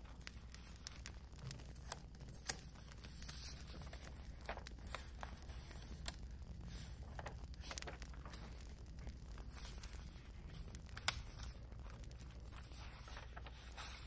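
Scrapbooking packaging and paper being handled: faint rustling and tearing with scattered small crinkles and a few sharp clicks, the loudest about two and a half seconds in and near eleven seconds.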